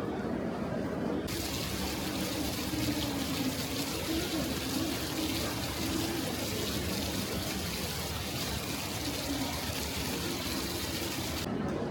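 A steady hiss of running water starts suddenly about a second in and cuts off just as suddenly near the end, over a low murmur of voices.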